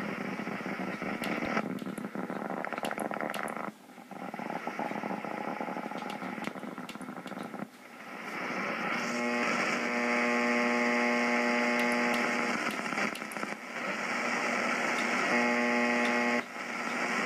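Shortwave receiver audio from an Icom IC-735 HF transceiver in AM mode, tuned to a utility station near 7.6 MHz. A steady noisy hiss is joined about nine seconds in by a buzzing hum, which cuts off shortly before the end. The sound drops out briefly a couple of times as the receiving antenna's direction is switched.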